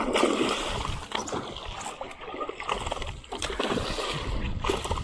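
Water splashing at the surface, several irregular splashes, as a tarpon strikes a live mullet bait and thrashes on the line.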